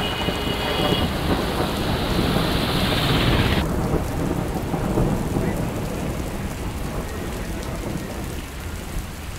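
Steady hiss of heavy rain falling on a wet road, with a low rumble underneath. About three and a half seconds in the hiss turns suddenly duller, and the rain then grows gradually quieter.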